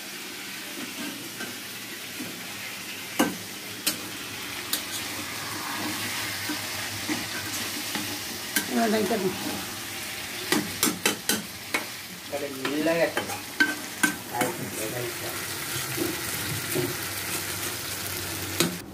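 Chicken curry frying in a metal kadai, sizzling steadily while a metal spatula stirs it. The spatula scrapes and clinks against the pan, most often about halfway through.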